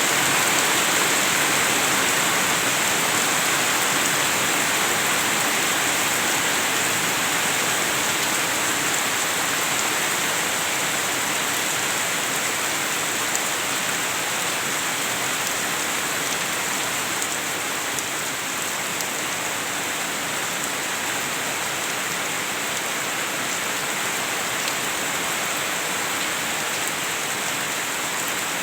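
Heavy rain falling steadily, a dense even hiss without a break.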